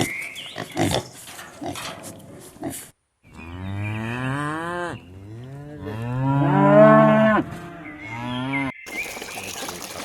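A few short grunts, then after a brief gap a cow mooing three times in long, low calls, the middle one the longest and loudest.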